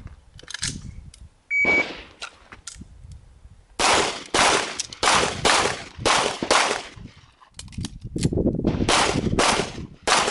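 A shot timer's short electronic beep, then about two seconds later a semi-automatic pistol firing a quick string of about six shots at a steady pace. After a brief break for a reload, a second string of shots follows.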